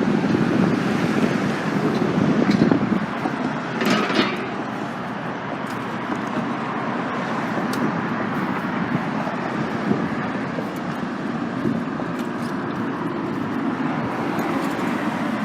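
Steady street traffic noise, with a brief louder burst about four seconds in.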